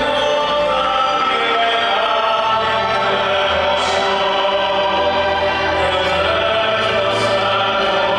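Choral music with sustained, held voices playing as a skater's short-program music over an ice rink's sound system. Two short hisses come about four and seven seconds in.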